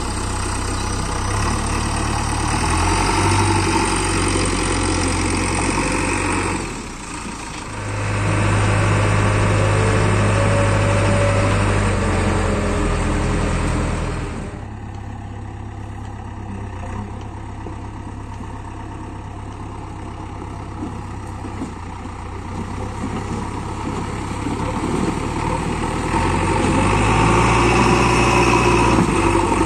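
Diesel engine of a JCB 3DX backhoe loader working a load. It runs at high revs with a short drop about seven seconds in, settles lower about halfway through, and rises again near the end.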